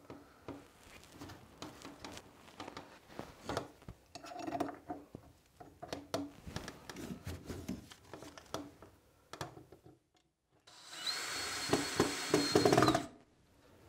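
Light knocks and scrapes of a wooden board and metal angle brackets being handled against a wooden wall. About eleven seconds in, a DeWalt cordless drill/driver runs for about two seconds with a steady high whine, driving a screw into a bracket.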